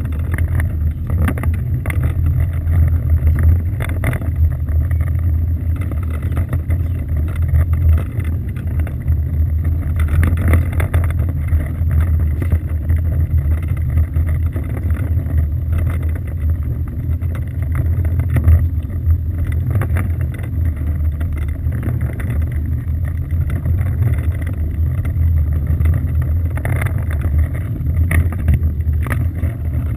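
Steady low rumble aboard a small motorboat, mixed with wind and water noise, with a few brief knocks.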